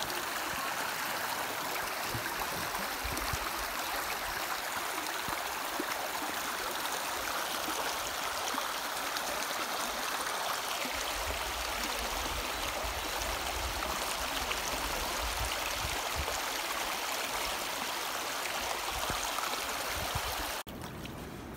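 Steady rushing of running water from a rocky creek, with a low rumble joining about halfway; the sound cuts off suddenly near the end.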